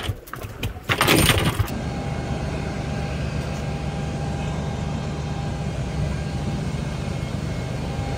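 Loud bursts of wind buffeting the microphone on a fishing boat for about the first second and a half, then a steady machinery hum of a hangar, with a faint constant tone over a low drone.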